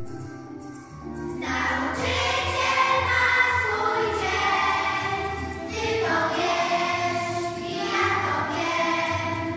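A group of young children singing a song together with instrumental accompaniment; after a short instrumental opening the voices come in about a second and a half in.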